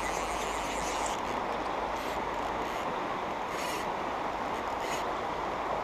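Steady rushing of a riffled river's current over a stony bed.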